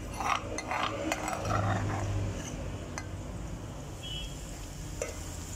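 A metal spoon scraping and clinking against a mortar as crushed ginger-garlic paste is scooped out, busiest in the first two seconds, then a couple of single light clicks.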